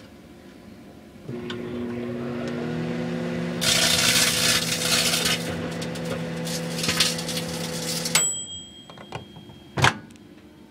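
Microwave oven switched on and running with its steady hum while a flattened metallised chip bag inside crackles loudly as it shrinks, strongest in the first couple of seconds of crackling. The oven stops suddenly with a ringing ding from its dial timer, and a sharp click follows as the door is opened.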